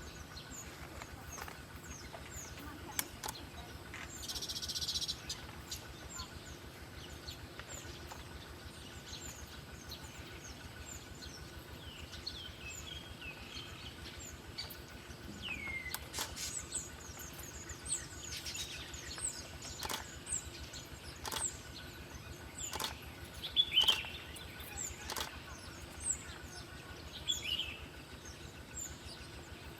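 Small birds chirping now and then in short, high calls over a steady outdoor background hiss, with a few sharp clicks scattered through and a brief burst of hiss about four seconds in. The chirps come thicker in the second half, and the loudest one is a little before the end.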